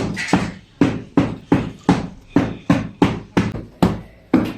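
A steady series of sharp knocks, about two and a half a second, each dying away quickly.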